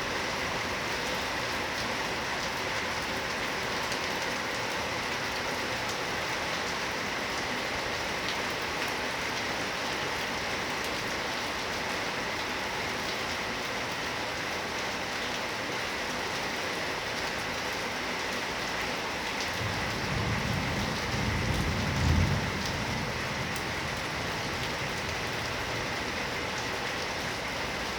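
Heavy rain falling steadily. About twenty seconds in, a low rumble of thunder swells for a few seconds, peaks, and fades back under the rain.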